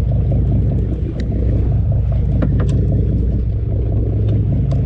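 Sportfishing boat's engine running steadily, a loud low drone, with a few light clicks now and then.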